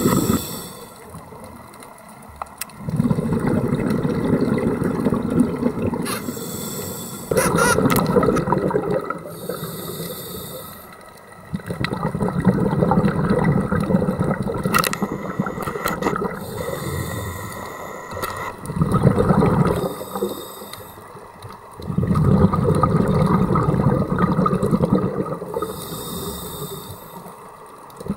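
Scuba diver breathing through a regulator, heard underwater: a short hiss on each inhale, then a long rush of exhaled bubbles, repeating in a slow cycle of several seconds.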